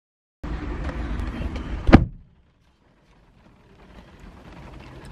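Rustling and rumble of someone shifting about in a car's seat, ending in one loud thump about two seconds in. Then, after a break, a faint steady car-interior background.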